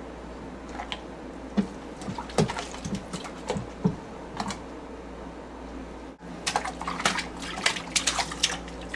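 Water splashing and slapping in a plastic infant bathtub as a baby kicks his legs: irregular short splashes, coming thicker and faster from about six seconds in.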